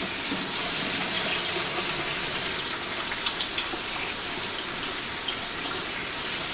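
Kitchen faucet running steadily as hands are washed under it, with a few light ticks about three seconds in.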